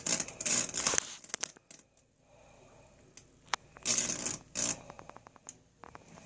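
Microwave oven transformer's high-voltage arc, about 2,000 volts AC, crackling in two short bursts: one at the start lasting about a second, another about four seconds in, followed by rapid ticking.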